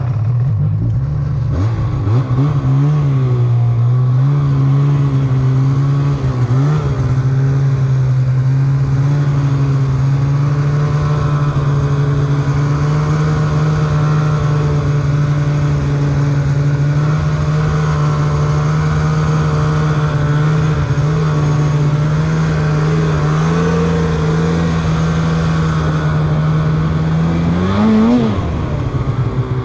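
Polaris snowmobile engine running at steady high revs as the sled rides through snow, with a short rise and drop in revs near the end.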